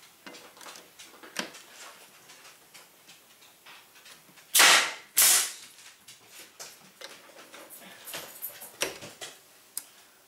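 Finish nailer firing twice, about half a second apart, driving 1.5-inch finishing nails through a plate into wood. Lighter clicks and knocks of the tool being handled and set down come before and after.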